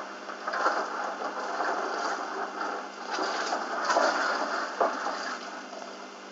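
Dark malt-extract wort poured from a stainless steel pot into a plastic fermenter bucket, the last of it then scraped out of the pot with a wooden spoon; a sharp knock about five seconds in, and the sound dies down near the end.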